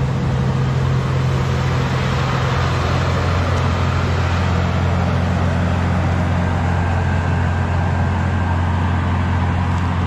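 International Harvester 1486 tractor's six-cylinder turbo diesel running steadily at idle, a deep even drone.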